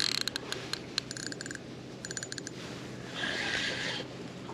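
Fishing reel clicking in short bursts of rapid ticks while a hooked fish is played, after a few single clicks. A brief rush of hissing noise follows about three seconds in.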